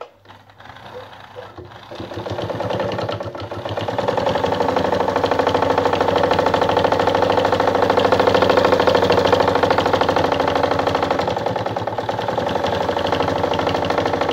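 Anker RZ sewing machine sewing a zigzag stitch through stretchy fabric, speeding up over the first few seconds into a fast, steady run of needle strokes. It is making a lot of noise, which the sewer puts down to the stretchy gym material.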